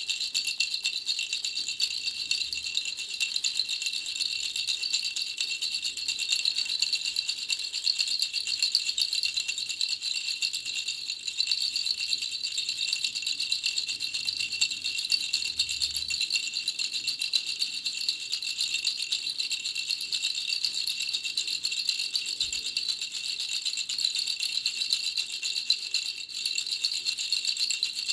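Baby rattle shaken continuously, a dense, fast, unbroken rattling with no pauses.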